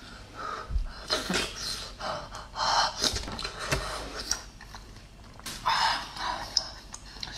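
Slurping and sharp breaths in and out through the mouth while eating a steaming hot oyster from its shell, as a few short separate bursts.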